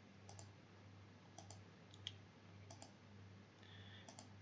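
Faint computer mouse clicks: four pairs of short clicks, each the press and release of the button, about a second or more apart, over a faint low hum.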